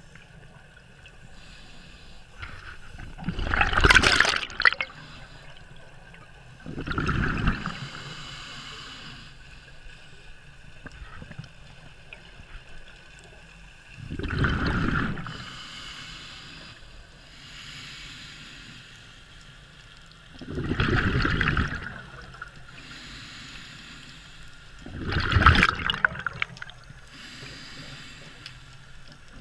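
Scuba diver breathing through a regulator underwater: about six loud gurgling bursts of exhaled bubbles come a few seconds apart, with a fainter hiss of inhaling between them.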